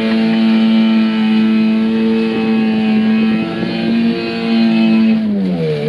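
Boat engine running at a steady speed, with a slight rise about four seconds in and then a slide down in pitch near the end as it slows.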